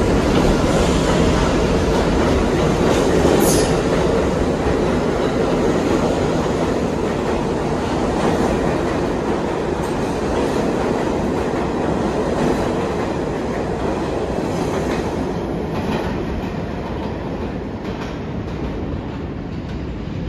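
R68 subway train moving out along the platform into the tunnel: a steady rumble of steel wheels on rail with clicks from the rail joints, slowly fading as it goes. A brief high squeal comes about three and a half seconds in.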